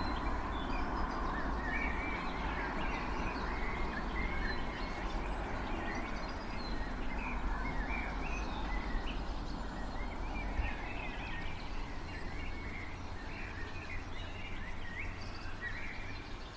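Many birds chirping and singing all around, short calls overlapping throughout, over a steady low rumble.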